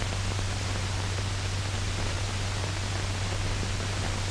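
Steady hiss with a constant low hum, the background noise of an old film soundtrack; no other sound stands out.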